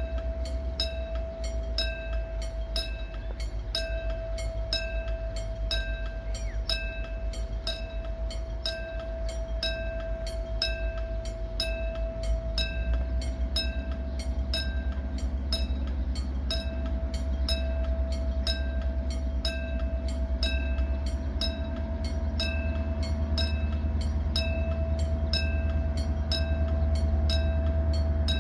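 Diesel locomotive hauling a string of unpowered subway cars, its engine rumble growing louder from about halfway in as it approaches. A regular ding about once a second sounds throughout.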